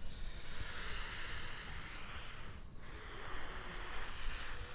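Steady hissing whoosh of a toy aircraft's small propellers in flight, briefly dropping away about two and a half seconds in.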